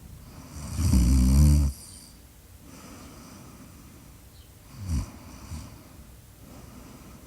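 Snoring in sleep: one long, loud snore about a second in, then a shorter, fainter snore around five seconds in, with soft breathing between.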